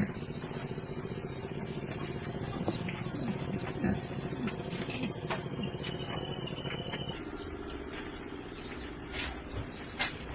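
Insects, crickets or similar, trilling steadily in one high, even tone, which changes about seven seconds in. Scattered short clicks and a few low, bending animal-like calls sound faintly through the middle.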